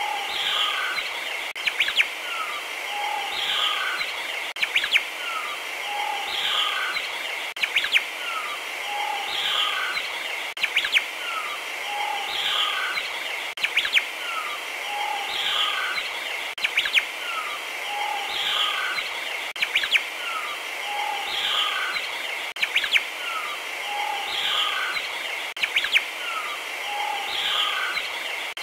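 A looped recording of birdsong: short chirps and calls over a steady high hiss, the same snippet repeating about every three seconds, with a sharp click at each repeat.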